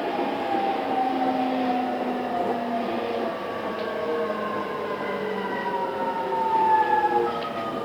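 JR East E217 series motor car running before its renewal: the GTO inverter and traction motors whine in several tones that slide slowly down in pitch as the train slows, over wheel and running noise.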